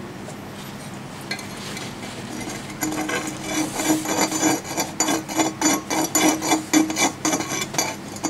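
Rapid, irregular clinking and tapping of a collodion-coated plate's corner against the glass mouth of a collodion bottle, as the excess is drained back in with the plate rocked. It starts about three seconds in and stops just before the end.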